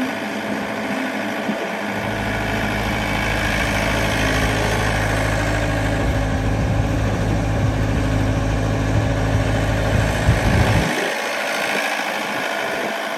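Yanmar ViO70 mini excavator's diesel engine running as the machine digs and swings a bucket of mud, a steady drone with a deep rumble that cuts off abruptly about eleven seconds in.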